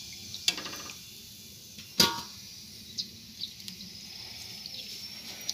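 A perforated steel slotted spoon clinks against a steel kadai twice, about half a second in and more sharply at about two seconds, with a brief ring each time. Lighter taps follow, over a steady sizzle of kachoris frying in hot oil.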